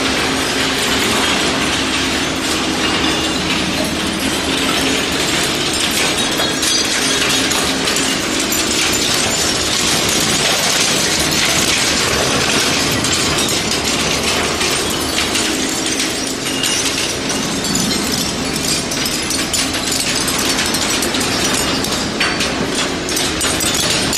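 Eddy current separator running, with a dense, steady clatter of shredded aluminium profile and plastic pieces rattling off the machine, over a low hum.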